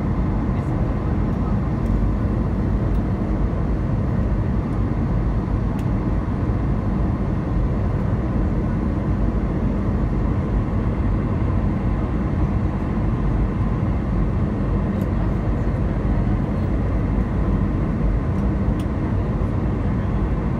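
Steady cabin noise inside an Airbus A320 descending on approach to land: the engines and airflow make an even, unbroken rush that is strongest at the low end, with no change in level.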